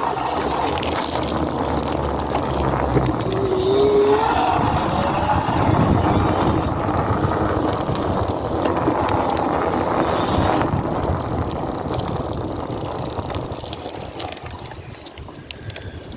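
Electric hub motor running with a grinding noise, a sign of trouble inside the hub. A rising whine comes in about three seconds in, and the sound slowly dies away near the end.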